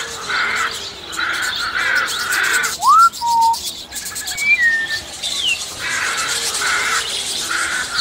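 Parrots calling: runs of harsh, grating screeches, broken in the middle by a few clear whistles, one rising steeply and others gliding down.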